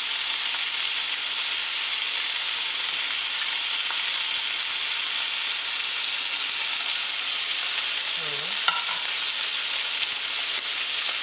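Pork and vegetables sizzling steadily in oiled frying pans on a stovetop, with a single brief click about eight and a half seconds in.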